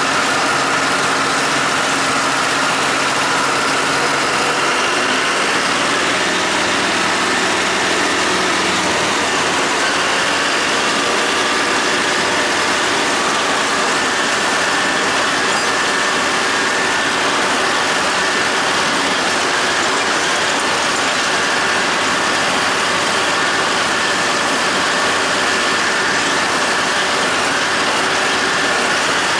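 John Deere 5320 tractor's diesel engine running steadily under load, driving a John Deere 270 disc mower through the PTO while it cuts grass hay, with a steady hiss from the mower's spinning discs over the engine. The engine note shifts a few seconds in.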